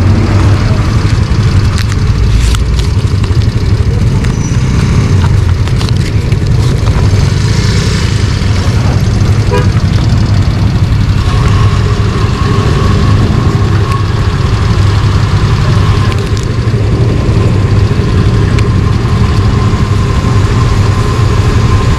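Motorcycle engine running steadily, a constant low rumble with no revs or changes in pitch.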